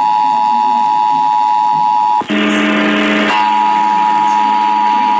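Emergency Alert System attention signal from a radio broadcast: the steady two-tone alarm of a monthly test. About two seconds in it is cut by a click and about a second of other, noisier audio with a low hum, then the two-tone comes back.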